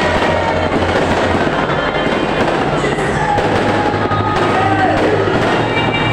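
Fireworks display going off continuously, a dense run of rapid bangs and crackles with no break.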